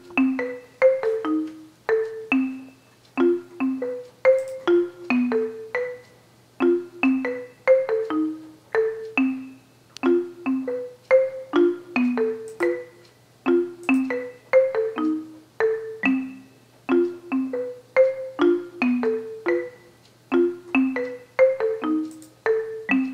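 Background music: a light tune of short struck notes, several a second, in a repeating pattern over a faint steady low tone.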